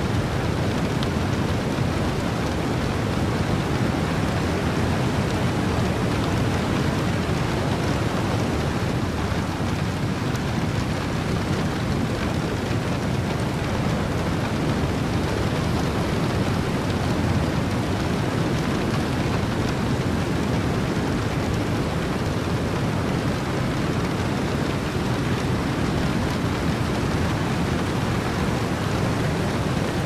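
Heavy rain mixed with wind and ocean surf: a dense, even rush of noise with most of its weight in the low end, steady throughout.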